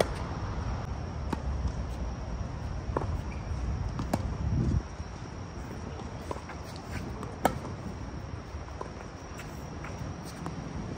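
Scattered sharp knocks of tennis balls being hit and bouncing on a court, at uneven intervals, the loudest about seven and a half seconds in. Underneath are a low rumble and a steady high tone.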